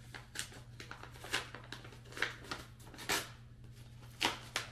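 Paper envelope being opened and handled: a string of short, crisp rustles and crinkles, about one a second, the loudest near the end.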